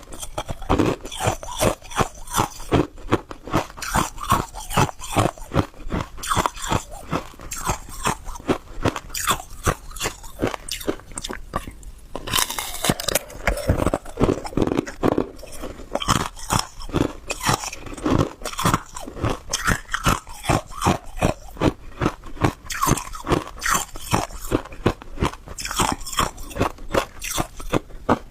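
Close-miked biting and chewing of hard ice: sharp, crisp crunches repeating a few times a second as the ice cracks between the teeth.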